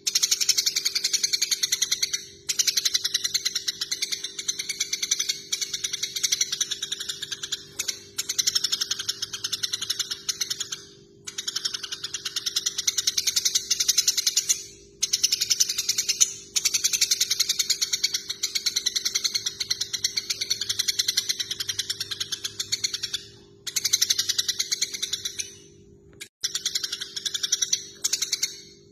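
Eurasian tree sparrows chattering in their fast, agitated fighting calls: long runs of rapid chirps, several seconds each, broken by short pauses. A faint steady hum runs underneath.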